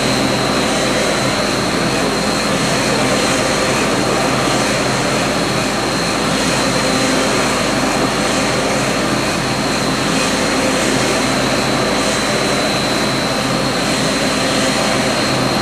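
Tracked SURN CZ radar vehicle's machinery running steadily: a constant low drone with a high whine held over it.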